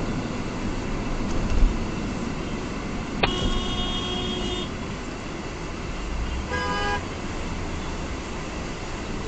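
Steady road and engine noise heard from inside a moving car, with a low thump about one and a half seconds in. A car horn sounds twice: a held toot of about a second and a half about three seconds in, then a shorter toot near seven seconds.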